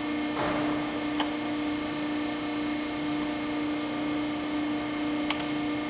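Hydraulic power unit of a 90-ton Pacific CNC hydraulic press brake running with a steady hum. There is a short rush of noise near the start, and two sharp clicks, one about a second in and one near the end.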